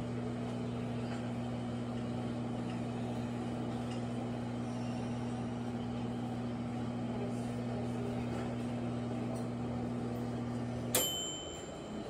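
Small dial-knob microwave oven running with a steady hum; about eleven seconds in the hum cuts off and the timer bell dings once, ringing on briefly, to signal the end of the heating time.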